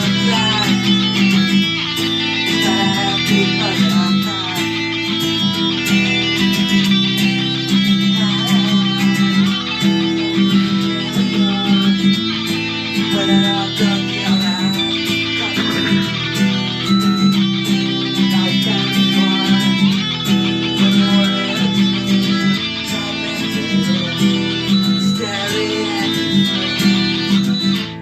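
Instrumental guitar passage of a song, with no singing: plucked and strummed guitar over steady low notes.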